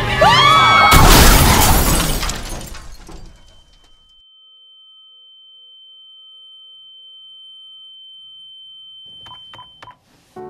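Car crash: tires screeching, then a loud collision with glass shattering about a second in that dies away over about two seconds. A single steady high-pitched tone follows for several seconds, with a few faint knocks near the end.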